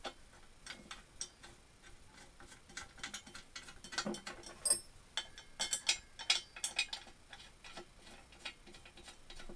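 Faint, irregular metal clicks and taps as bolts and washers are fitted by hand to secure a bench drill's column flange to its base plate.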